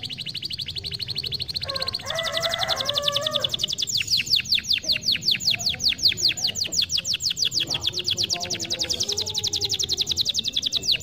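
Domestic canary singing one long unbroken song. It opens with a fast buzzy trill, then from about two seconds in switches to a rapid run of evenly repeated downward-sweeping notes.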